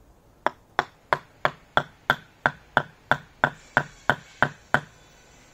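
Wooden mallet striking the top of a wooden stake, about fourteen sharp, even knocks at roughly three a second, as the stake is driven into the turf to pin a pole down. Wood on wood.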